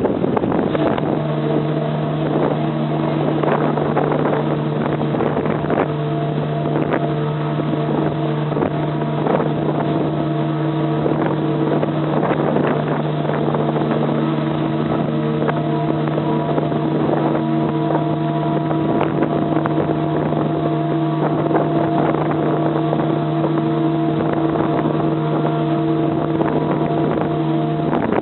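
SS Normandie's three-bell chime steam whistle blowing one long steady blast of nearly half a minute: a low chord of several held tones that cuts off near the end. Behind it is a rough, noisy background with scattered clicks.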